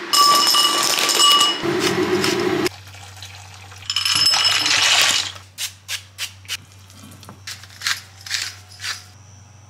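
Water poured from a kettle into a saucepan, a splashing rush, with a second similar rush about four seconds in. Then a string of short, light clicks and rattles as seasoning is shaken over raw chicken pieces in a frying pan.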